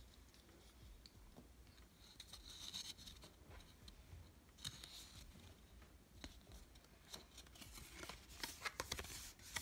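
Faint rustling, scraping and light clicks of a small cardstock booklet being handled and opened out, with a cluster of these sounds near the end.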